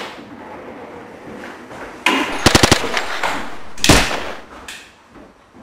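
A rapid burst of gunfire, about six shots in under a second, followed about a second later by a single loud bang.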